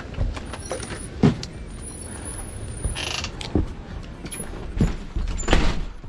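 Strong gusting wind buffeting the microphone in a steady low rumble, with handling knocks and rustles, a thin high squeak about a second in, and a louder rustling burst near the end.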